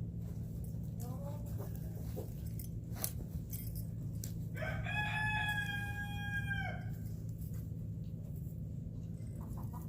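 A rooster crows once, a call of about two seconds in the middle, over a steady low hum.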